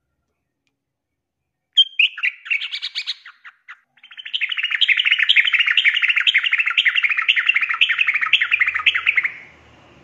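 Yellow-vented bulbul (trucukan), a female, calling loudly. A few sharp chirps come in about two seconds in, then a long, fast, bubbling chatter runs for about five seconds and stops shortly before the end.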